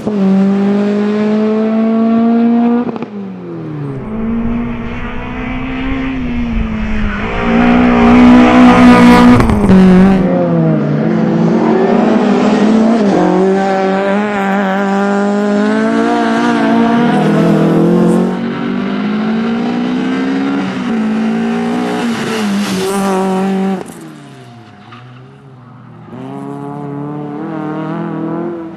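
Peugeot 306 rally car's engine driven hard, its pitch repeatedly climbing and then dropping at gear changes and lifts, as the car passes close by. A deep low rumble sits under the engine between about four and ten seconds in, and the sound drops away briefly near the end.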